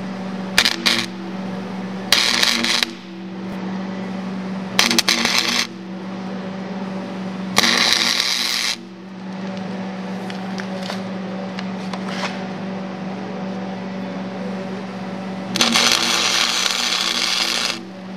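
Arc welder spot-welding a bolt onto a broken-off bolt stub: several separate bursts of crackling arc, most under a second, the longest about two seconds near the end, over a steady hum.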